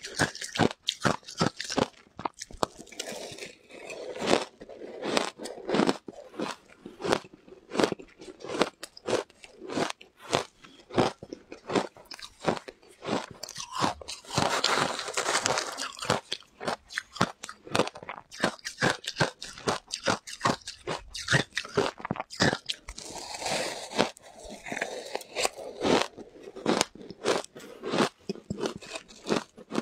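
Close-miked crunching and chewing of shaved ice coated in matcha powder, a dense run of sharp icy crunches several times a second. About halfway through comes a longer, gritty rush as a spoon scoops through the ice in the bowl.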